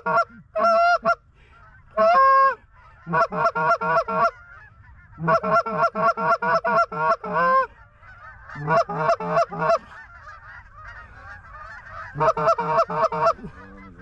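Geese honking: loud runs of short, quick honks at about five a second, broken by one longer drawn-out honk about two seconds in, while a flock honks faintly between the runs.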